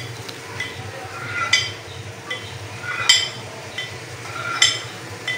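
Knife cutting set jelly in a glass dish, the blade clinking against the glass three times about a second and a half apart, each clink just after a short scrape.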